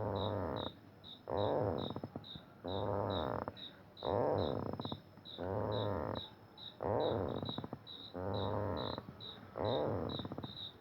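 A strange rhythmic groaning noise from a spot in the ground, about eight pitched swells that rise and fall, each under a second long, coming roughly every 1.3 seconds like a person snoring; the men guess it comes from a septic pit. Crickets chirp steadily behind it.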